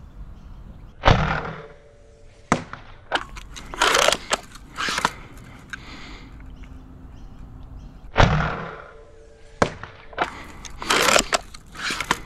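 Sabre M20S spring-powered foam dart blaster fired twice, about seven seconds apart. Each shot is a loud, sharp thump, followed over the next few seconds by sharper cracks and bursts of clacking and rattling.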